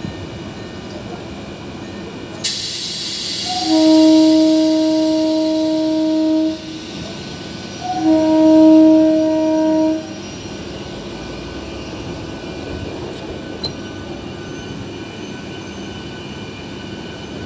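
Train horn sounding two long blasts, the first about three seconds long and the second about two, over the steady running noise of a moving train coach. A sudden rushing hiss starts shortly before the first blast and fades away.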